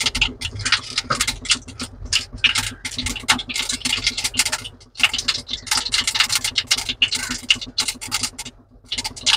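Metal potato masher pressing and scraping boiled potatoes against a stainless-steel plate: a rapid, irregular run of clicks and scrapes of metal on metal, with a brief pause about halfway through.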